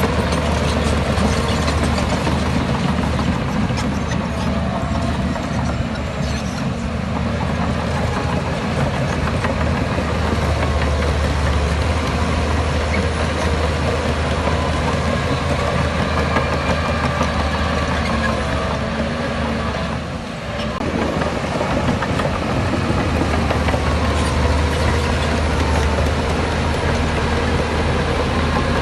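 Heavy diesel engine of earthmoving machinery running steadily, with a brief dip in loudness about two-thirds of the way through.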